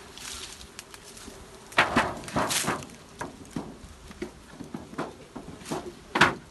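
A bee smoker puffs over the open hive frames while honeybees hum. Then come wooden knocks and scrapes as the wooden lid is lifted and set down on the hive box, the loudest about two seconds in and again near the end.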